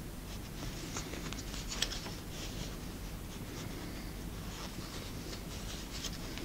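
Thick yarn being pulled and looped by hand around a small wooden tool: soft scratchy rustling of fibre against fingers and wood, with light clicks, the sharpest about two seconds in.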